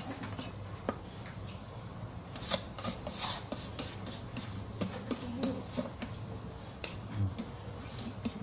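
Plastic rice paddle scraping and stirring cooked rice in a rice cooker's inner pot, with sharp clicks where the paddle knocks the pot. There is one click about a second in, and the scraping grows busier from about two and a half seconds on.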